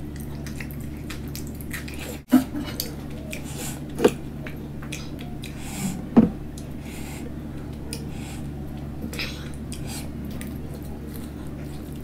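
Close-miked eating: chewing and wet mouth sounds, with a few sharp clinks of a metal fork against a steel bowl, the loudest about four and six seconds in, over a steady low hum.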